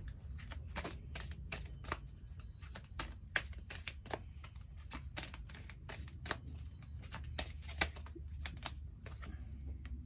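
A deck of oracle cards being shuffled by hand: a busy, irregular run of sharp card snaps and taps, several a second, over a low steady hum.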